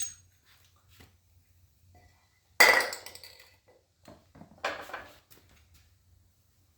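Metal parts clanking and clinking as they are handled. There is a sharp click at the start, a loud clank about two and a half seconds in that rings briefly, and a shorter, noisier rattle around five seconds.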